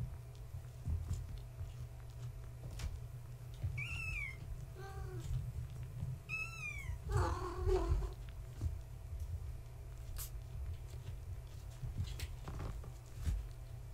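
Kittens meowing: two short, high-pitched falling mews about four and six and a half seconds in, a lower call near five seconds, then a louder, lower cat call a little after seven seconds. Soft knocks from the kittens' play and a steady low hum lie underneath.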